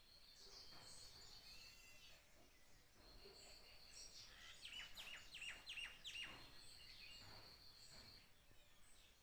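Faint birdsong: scattered high chirps over a steady high trill that comes and goes. About halfway through, one bird sings a quick run of about six downward-slurred notes.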